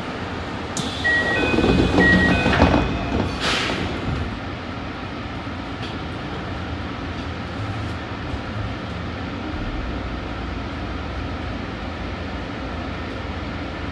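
Commuter train running through a tunnel, heard from the front of the train: a steady rumble of wheels and running gear on the rails. In the first few seconds there is a louder stretch with a few short high beeps, ending in a brief rush about three and a half seconds in.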